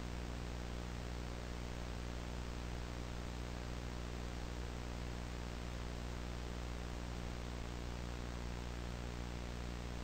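Steady hum and hiss of analogue videotape playback: a buzzing hum with many evenly spaced overtones under an even hiss, unchanging throughout.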